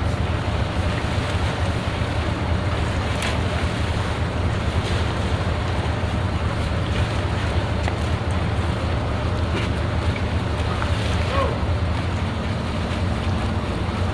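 Steady low drone of a boat's engine running, with wind and water noise over it.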